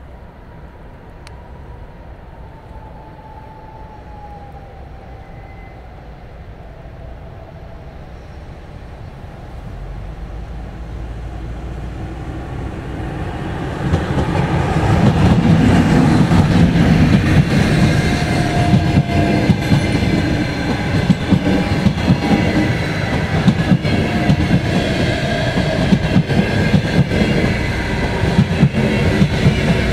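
An EP2K electric passenger locomotive approaches, growing steadily louder, and passes close by about halfway through with a sudden jump in loudness. The passenger coaches it hauls then roll past with a heavy rumble and a steady clatter of wheels over rail joints.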